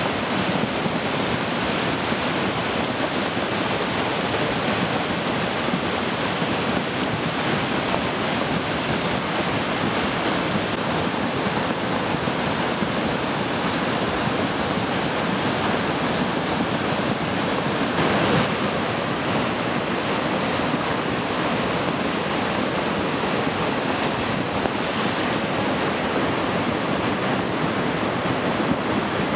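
Mountain creek in flood, its fast, muddy water rushing steadily in an even, unbroken roar of water.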